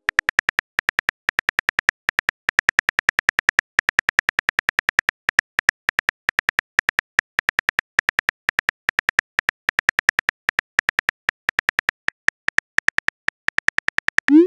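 Rapid keyboard-click sound effect of a texting app, about seven clicks a second, as a message is typed out letter by letter. Near the end a short rising whoosh sounds as the message is sent.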